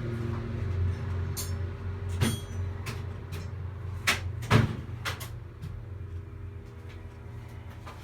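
Clinks and knocks of tools and metal parts as an old fluorescent light fitting is handled and worked on, with two sharper knocks about four seconds in, over a steady low hum.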